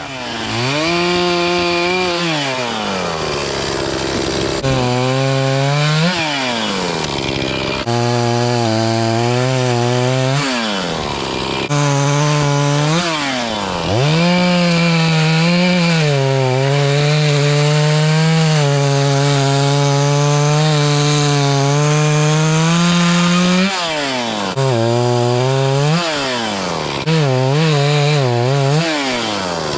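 Gas chainsaw bucking up felled maple limbs: the engine revs up into cut after cut, its pitch sagging under load, and drops back down between cuts about half a dozen times. The longest cut, in the middle, runs about ten seconds.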